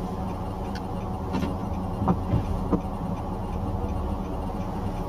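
Steady low hum of a running vehicle engine, with a few faint clicks in the middle.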